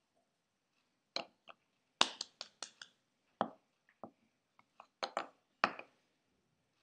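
A run of about a dozen sharp clicks and knocks from small hard objects being handled close to the microphone, coming fastest around two seconds in.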